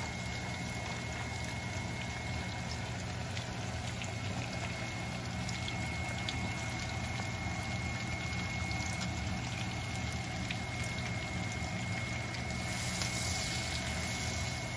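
Chopped onion sizzling in hot butter and oil in a non-stick kadai: a steady sizzle with small scattered crackles, growing brighter near the end as it is stirred with a silicone spatula. A steady hum runs underneath.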